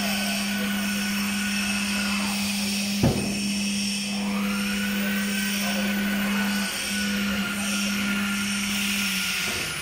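REU 1326 ATC CNC router running without cutting: its spindle gives a steady tone that stops near the end, while the axis drive motors whine, rising and falling in pitch as the head moves. A sharp click about three seconds in.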